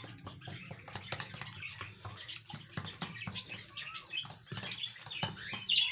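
Egg mixture with powdered folic acid tablets being shaken and stirred in a container: irregular sloshing, with clicks and rattles against the container. A short, sharp high sound near the end.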